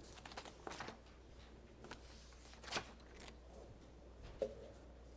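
Quiet room with a low steady hum and a few faint clicks and rustles, such as papers or objects being handled: a cluster in the first second, then single ones near the middle and about four seconds in.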